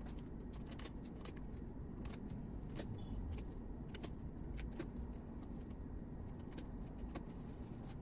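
3D-printed PLA cable chain being handled and fitted to the printer frame, its plastic links and clips giving small irregular clicks and rattles, over a low steady background hum.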